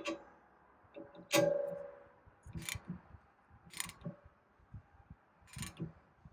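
Ratchet wrench and steel tool parts clicking and clinking while the Rivet Beast's compression screws are tightened against the saw: about five separate metallic clicks, the loudest about a second and a half in, with a brief ringing.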